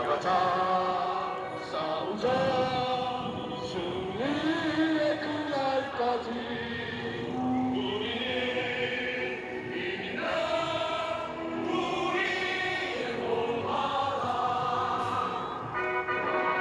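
Music with a choir singing, long held notes that shift in pitch every second or two.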